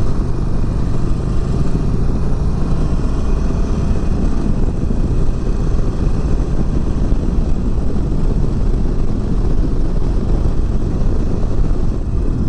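Harley-Davidson Forty-Eight's air-cooled V-twin running steadily while riding at road speed, mixed with heavy wind rush on the microphone.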